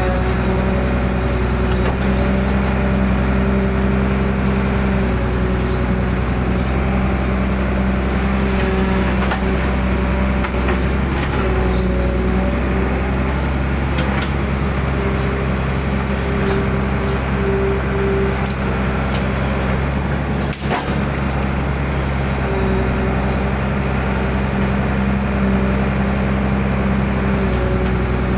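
An excavator's diesel engine running steadily under load, heard from the cab as the arm digs silt out of a drain. A higher whine comes and goes as the arm moves, with occasional faint knocks.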